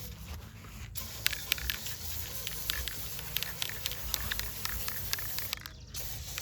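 Protective coating being sprayed onto a car fender: a steady hiss with many sharp crackling ticks from about a second in.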